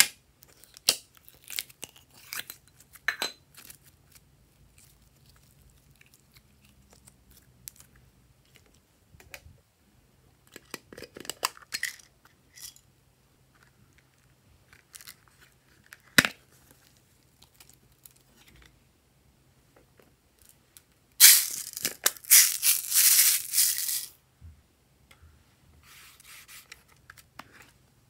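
Small plastic slime containers and cases being handled: scattered clicks and taps of lids and cases, one sharp click just past the middle, then a loud tearing, crinkling rustle lasting about three seconds near the end.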